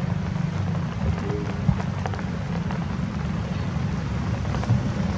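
A steady low rumble of outdoor background noise, with a few faint clicks, one sharper than the rest about one and a half seconds in.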